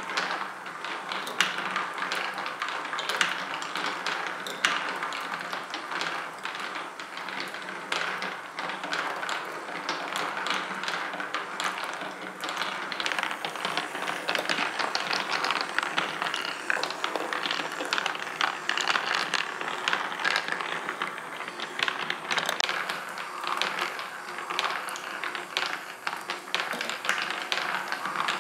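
Mini golf marble machine running: its motor-driven lift carries marbles up while marbles roll, click and drop along the tracks and into the holes. The result is a continuous ratcheting clatter of many small taps.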